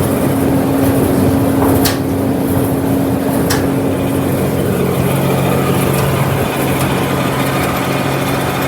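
Tractor engine running at a steady speed with a steady hum, with two sharp clicks about two and three and a half seconds in.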